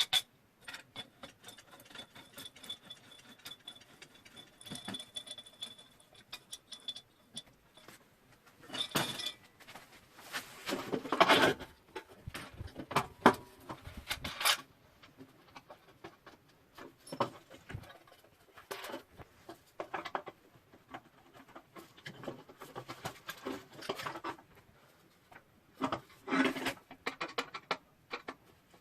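Hands unpacking and handling a twin halogen work light and its stand: scattered clicks and knocks of plastic and metal parts, with bursts of rustling packaging. A faint steady high whine runs through the first several seconds.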